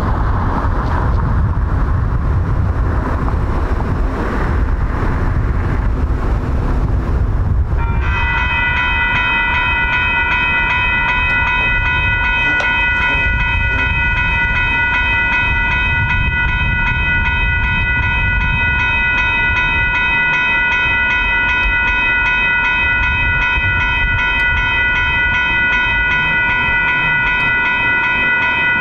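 Railroad grade-crossing warning bell starting up about eight seconds in and ringing rapidly and steadily as the crossing signals activate and the gates come down for an approaching train. Before it, a low rumble of road noise.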